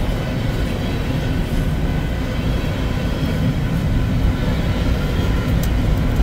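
Covered hopper cars of a freight train rolling past at close range: a steady low rumble of steel wheels on the rails.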